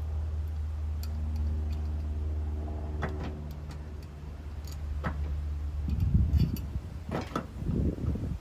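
Metal hand tools clinking and knocking against the mower deck and spindle bolts, with a few sharp clicks at first and a run of clanks and thumps near the end. Under it a steady low engine-like drone runs and fades out about six seconds in.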